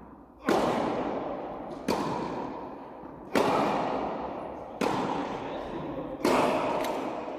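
Tennis ball struck by rackets in a rally: five sharp hits about a second and a half apart, alternating louder and softer. Each hit rings on with a long echo in the large indoor tennis hall.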